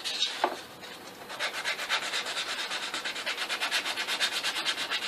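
Sandpaper scratching over a wooden shifter knob in quick, even back-and-forth strokes, about five a second, settling into a steady rhythm after a few scattered strokes in the first second.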